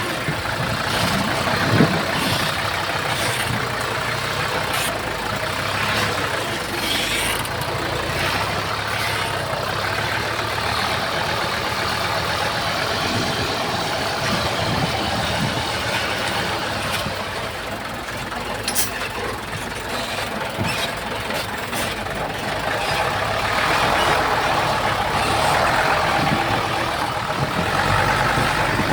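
Heavy diesel earthmoving machinery running steadily, with scattered sharp clanks and knocks. It grows somewhat louder from about two-thirds of the way through.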